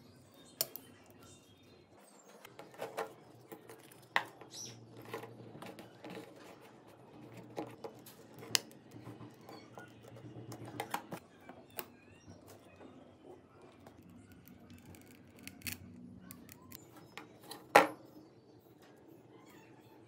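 Small hand tools working on a Samsung Galaxy phone: scattered clicks and taps of metal tweezers on the plastic back frame, then a plastic pry tool scraping along the edge of the cracked screen. A sharp knock about 18 seconds in is the loudest sound.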